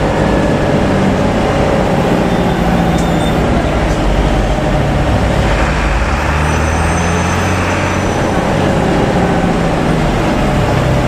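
Coach bus engine running with a deep drone that steps up and down in pitch a few times, over steady tyre and road noise, heard from inside the cabin.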